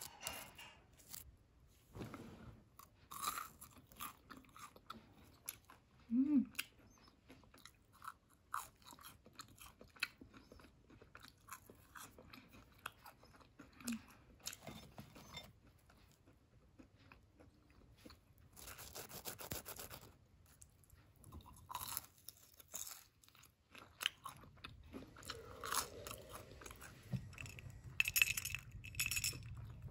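Quiet, irregular crunching and clicking sounds, with a short stretch of denser rustling noise about two thirds of the way through.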